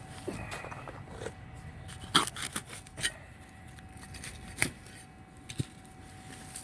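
Digging in dirt: a hand digger scraping the soil, with a handful of sharp knocks and scrapes spread through.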